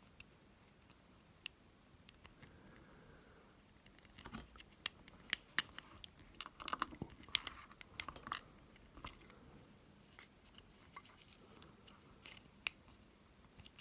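Small, sharp clicks, cracks and crackles of a Woo 3.0 sensor's glued battery and plastic casing being prised apart by hand, sparse at first and busiest in the middle.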